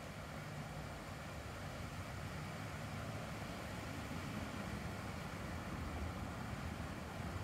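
Steady low mechanical hum, a few low tones over a faint outdoor noise wash, with no clear change in pitch or level.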